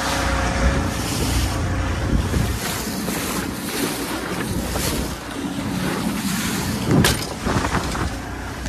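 Boat under way at trolling speed: water rushing and splashing along the hull from the bow wave, with wind buffeting the microphone. A sharp knock about seven seconds in.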